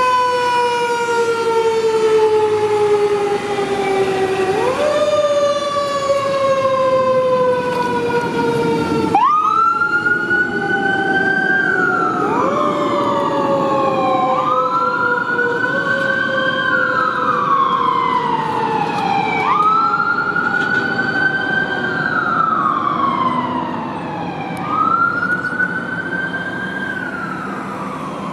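Fire truck siren wailing on a 2017 Pierce Enforcer tractor-drawn aerial ladder truck as it pulls out and drives off, with the engine running underneath. At first the siren slides slowly down in pitch and swoops back up every four to five seconds. From about nine seconds in, a second higher siren cycle rises, holds and falls over it, and the sound grows fainter near the end.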